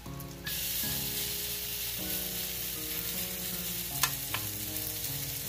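Vegetable-and-egg fritter batter hitting hot oil in a cast iron skillet: a loud sizzle starts suddenly about half a second in and keeps going as the fritter fries. Two sharp taps come about four seconds in.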